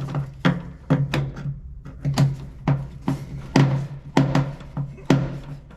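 Background music with a steady drum beat, about two hits a second over a held bass note.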